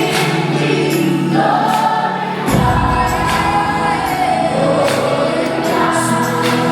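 Choir singing gospel worship music over instrumental backing, with a low bass coming in about two and a half seconds in.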